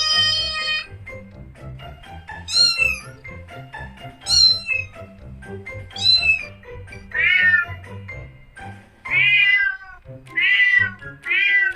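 Domestic cat meowing repeatedly, about eight meows one to two seconds apart, several dropping in pitch, over background music.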